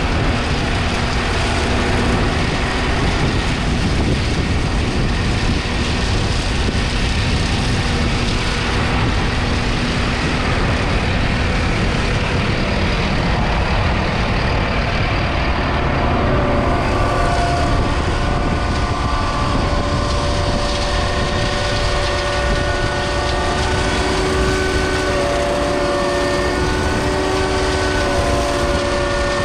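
2022 Massey Ferguson 5S 145's 4.4-litre four-cylinder diesel engine running steadily. About halfway through, several steady whining tones join the engine sound.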